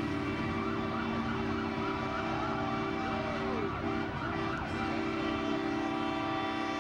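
Emergency vehicle sirens sounding over a steady droning tone, with a couple of rising-and-falling swoops about three to four seconds in.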